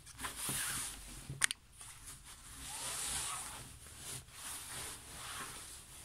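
Cloth rustling as a large sunshade curtain panel is gathered and shifted across a sewing table, swelling and fading several times, with one sharp click about a second and a half in.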